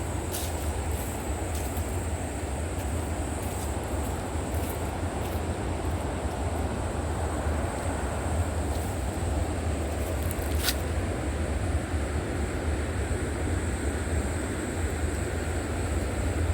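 River water flowing, a steady rushing noise with a low rumble underneath. A single sharp click comes about ten seconds in.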